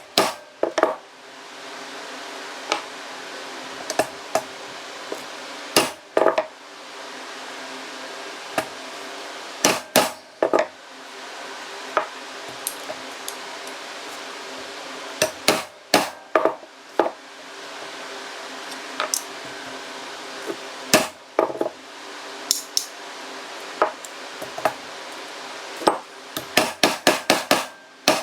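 A hammer striking metal in irregular single blows, with a quick run of taps near the end, driving an end piece into place on an RB26 individual throttle body assembly. A steady hum runs underneath.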